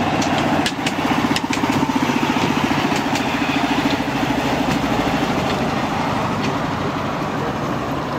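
Small engine of a miniature railway's diesel-outline locomotive running with a rapid pulsing beat as the locomotive pulls away, easing off in the second half. A few sharp clicks sound in the first half.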